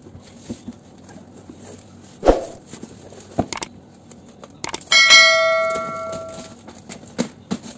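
A few dull knocks of hands on a cardboard box, then a bright bell chime about five seconds in that rings on and fades over about a second and a half: a subscribe-animation notification-bell sound effect.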